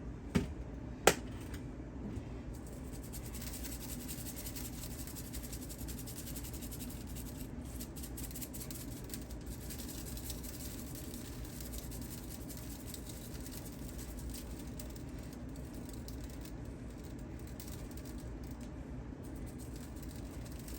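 Steady low room hum, with two sharp clicks about a second in and a fainter click shortly after.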